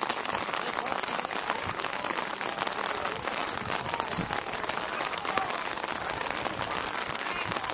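Steady rain falling, a dense hiss of countless small drop ticks, with faint distant voices.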